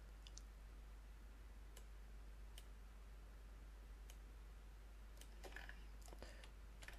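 Faint computer mouse clicks over a low steady hum: a few single clicks spread out, then a quick cluster of clicks and small handling noises near the end.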